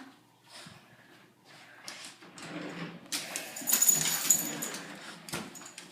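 Dogs tussling: irregular noisy scuffling bursts with faint whimpers, loudest and busiest about three to four and a half seconds in.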